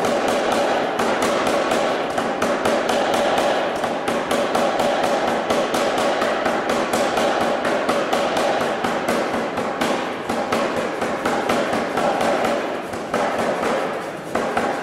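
Anyang 25 kg self-contained air power hammer striking hot steel in a rapid series of blows, several a second, over the steady running of its motor and compressor. The blows thin out near the end.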